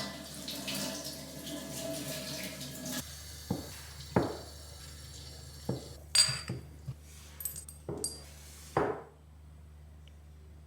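Kitchen tap running into the sink for about three seconds, then stopping, followed by a series of separate knocks and clinks as items are handled and set down while washing up spice-rack pieces.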